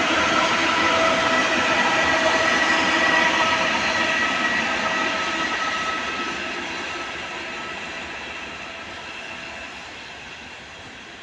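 ED4M electric multiple unit running along the track, with rail noise and several steady whining tones. It fades away over the second half as the train moves off.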